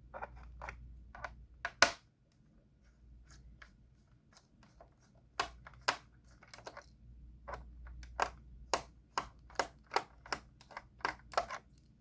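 Small sharp clicks and taps from a precision Torx screwdriver working the screws out of a laptop's bottom panel. The clicks are scattered at first, with one loud click about two seconds in, then come at about two a second near the end.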